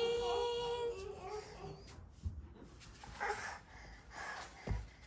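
A woman's sing-song 'good morning' held on one high note for about the first second, then a 14-month-old baby just woken, making a few faint whimpers and breaths.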